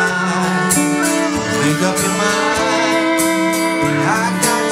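Live music from a guitar duo: a man sings into a microphone while playing an acoustic guitar, with a second man playing an electric guitar.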